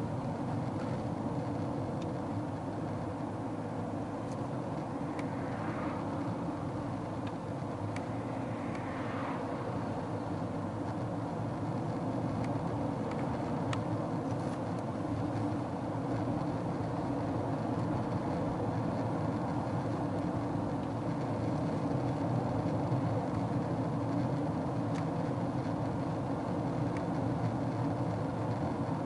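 Steady road noise of a car travelling at speed, heard from inside: tyre and engine rumble that stays even throughout.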